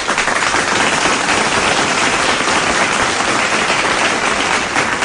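Applause: a dense, steady sound of many hands clapping.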